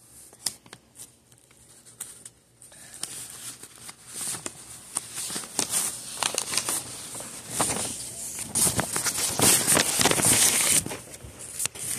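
Handling noise from the recording device being fumbled with: rustling and crinkling rubbed against the microphone, with scattered clicks. It is quieter for the first few seconds and heaviest near the end.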